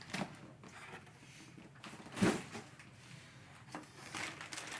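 Packaging and parts of a boxed action-figure vehicle being handled: soft rubbing with a few light knocks, the loudest about two seconds in.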